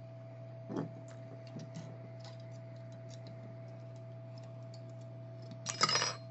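Hot-air rework gun running with a steady hum while its small nozzle tip is worked loose by hand: scattered light clicks and taps, with a louder clatter near the end.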